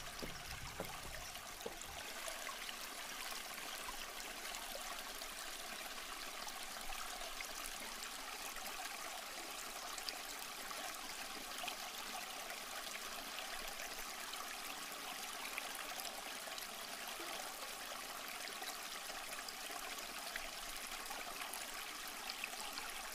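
Steady rush of a shallow stream running over rocks, with scattered faint clicks.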